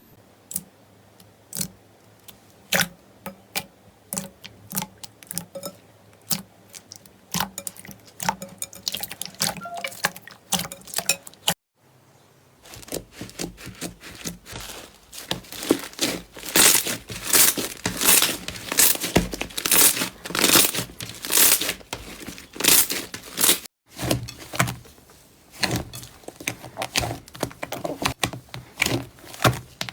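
Slime being handled close up, with crisp crackling and popping clicks: scattered at first, then dense and loud, in three stretches broken by brief gaps.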